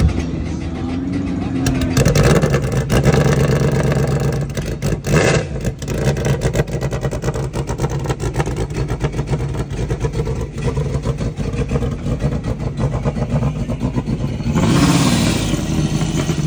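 Turbocharged jet ski engine running steadily, blipped briefly a couple of times, then revved louder with a rushing hiss near the end.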